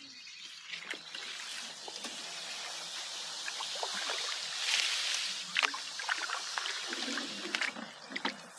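Paddling sounds from a small paddle boat in a narrow, shallow stream: water splashing and trickling off the paddle, swelling a little before the middle, with a few sharp knocks later on.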